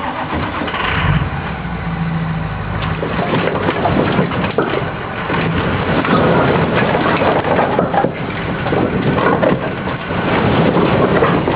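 An engine-driven machine running, with a loud, dense, continuous clattering and crunching over its steady hum.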